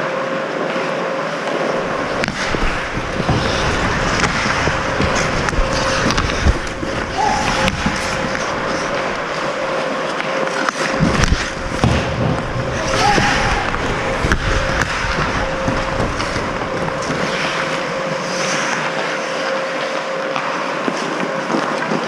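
Ice hockey skates scraping and carving across the rink, with scattered clacks of sticks and puck, under a faint steady hum.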